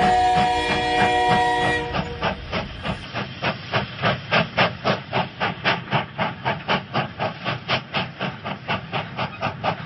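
Steam locomotive whistle sounding a steady chord for about two seconds, then the locomotive chuffing in an even rhythm of about four beats a second.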